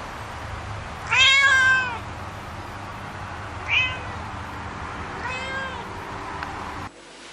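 Domestic cat meowing three times: a long, loud meow about a second in, a short one, then a softer one. The steady background hum drops suddenly near the end.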